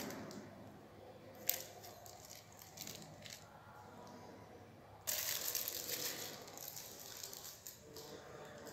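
Faint handling noises: a sharp click about a second and a half in, a few light clicks after it, then a sudden stretch of rustling and light clatter starting about five seconds in.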